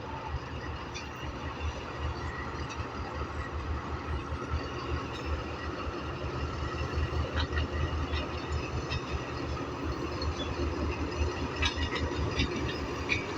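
Train at close range: a diesel locomotive's engine rumbles low and steady, with scattered clicks and knocks from the train. It grows a little louder during the second half.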